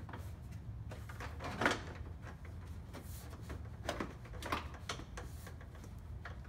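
Plastic TRD Pro grille assembly being pushed and seated into a Toyota Tacoma's front end: a few short plastic knocks and clicks as its tabs go into place. The loudest is about one and a half seconds in, with more around four to five seconds in, over a low steady hum.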